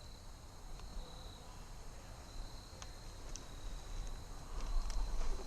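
Faint, steady, high-pitched drone of evening insects, with a few light clicks and a low rumble of movement near the end.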